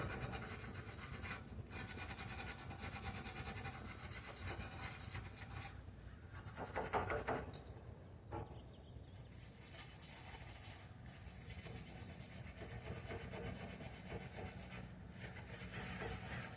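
Low, scratchy rubbing noise that goes on throughout, louder for a moment about seven seconds in.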